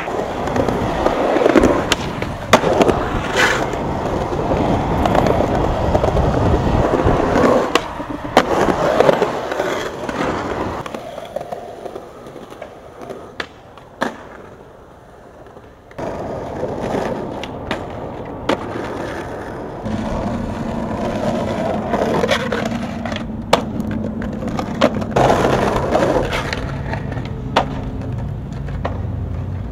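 Skateboard wheels rolling on concrete, broken by sharp clacks of tail pops, landings and board impacts across several separate runs. A steady low hum comes in about two-thirds of the way through.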